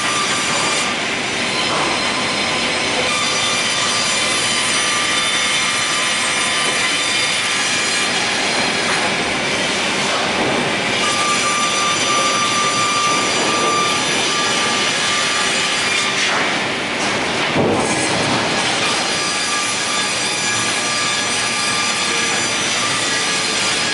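Programmable four-blade multiple saw (FORMA DZ-4-650) running steadily with a high whine from its spinning blades, cutting a live-edge board as it feeds through, with a louder cutting surge now and then.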